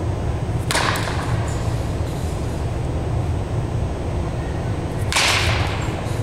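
Two cracks of a baseball bat hitting tossed balls, about four seconds apart, each with a short noisy tail, over a steady low hum.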